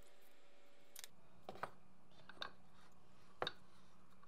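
Faint, scattered clicks and light knocks as wooden clamp parts are handled and a wooden end block is pushed onto a metal conduit pipe, about five small taps, the clearest near the end.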